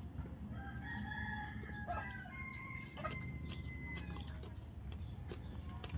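A rooster crowing once, starting about half a second in and lasting about two and a half seconds, with small birds chirping throughout.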